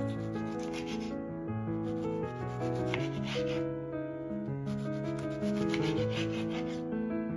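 Kitchen knife sawing through a ripe tomato on a wooden cutting board: three rasping slicing strokes about two seconds apart, over soft background music.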